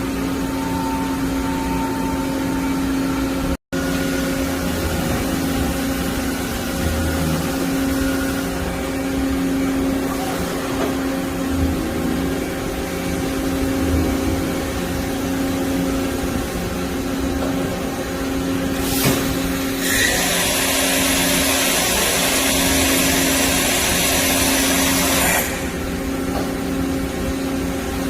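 Doosan DCM-2740F CNC double column machining center running, a steady machine hum with a constant tone. About twenty seconds in, a loud hiss starts and cuts off suddenly some five seconds later.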